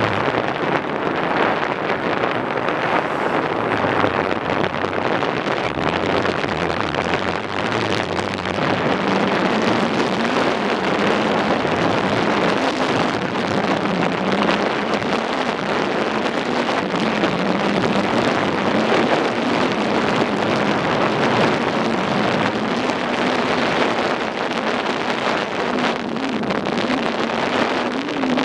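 Wind rushing over the microphone on a moving motorcycle, with the engine's hum faintly underneath, its pitch edging up near the end.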